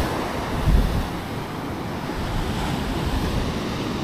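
Ocean surf breaking and washing up a sandy beach, with wind rumbling on the microphone, briefly stronger just under a second in.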